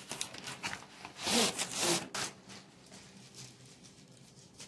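Cardboard packaging scraping and rustling as ceiling-fan blades are slid out of their box: rough scrapes through the first two seconds, two of them louder, then quieter handling.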